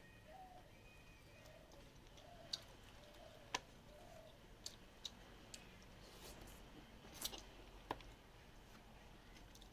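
Quiet eating sounds: sparse sharp clicks and smacks of chewing and hand-eating rice with chicken curry, about seven of them, the loudest about three and a half seconds in.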